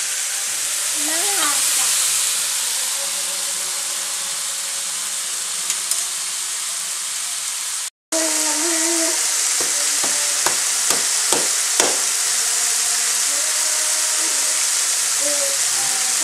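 Chicken pieces frying in a pan, a steady sizzle, with a brief dropout about halfway. A few sharp clicks and knocks come over the next few seconds.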